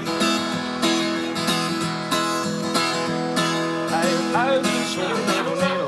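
Acoustic guitar strumming chords in a steady rhythm, the introduction to a song before the singing starts.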